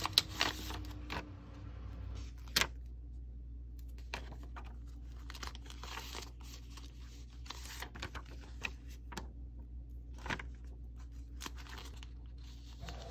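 Clear plastic binder sleeves and paper sticker sheets rustling and crinkling as pages are turned and sheets handled, with a few sharp clicks, the loudest about two and a half seconds in.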